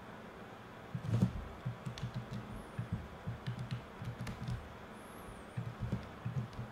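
Computer keyboard keystrokes: after a quiet first second, an irregular run of short taps and clicks.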